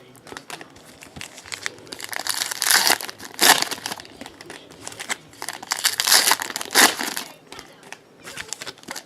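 Trading card pack wrappers being torn open and crumpled by hand, in several crackly bursts, the loudest between about two and three and a half seconds in and again between about five and a half and seven seconds in.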